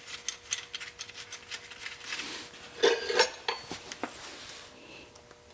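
Loose metal car parts clinking and rattling as they are handled: a string of light clicks, with a louder clatter of ringing clinks about three seconds in.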